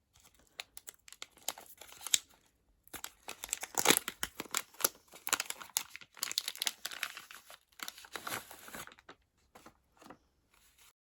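Packaging crinkling and tearing as a pair of boxers is unwrapped, an irregular stream of crackles and rustles that thins out near the end.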